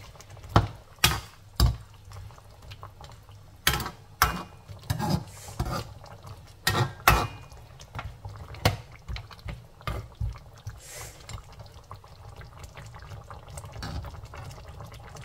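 Perforated metal spatula stirring a saucy lamb stew in a wok: irregular sharp clinks and scrapes against the pan with the liquid sloshing, over roughly the first ten seconds. After that comes a quieter stretch of the sauce simmering.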